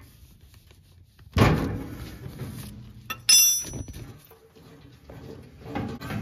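Metal wrench knocking against a propane grill's sheet-metal cabinet and brass gas fitting while the old hose's fitting is broken loose: one heavy thunk about a second and a half in, then a sharp ringing metallic clink about two seconds later, followed by quieter handling of the fitting.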